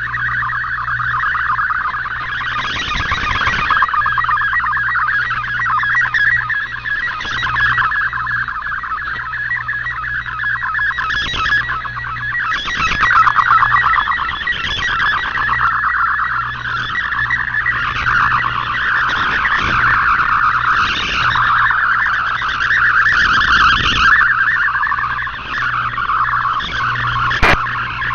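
Shortwave digital data-mode transmission (MFSK/Olivia-type text signal) received on a shortwave radio: a dense band of rapidly shifting tones over hiss, fading up and down, with a steady low hum and a sharp static click near the end.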